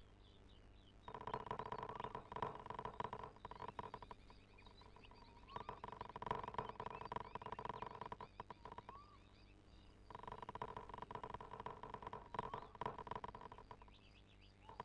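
Toshiba washing machine running a wash cycle: its motor hums in bursts of about three to four seconds with short pauses between, three times, starting again near the end, as the drum turns and stops.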